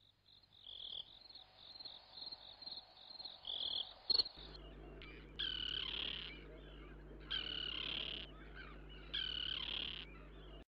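Nature-sound soundtrack: rapid high chirping, about three chirps a second, like insects, then over a steady low hum three long animal calls about two seconds apart. It cuts off abruptly just before the end.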